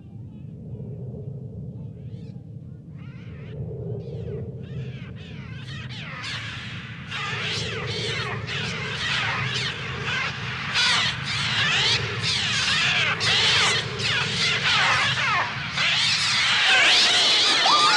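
A flock of attacking birds shrieking, the cries sparse a few seconds in and building into a dense, loud clamour, over a steady low rumble.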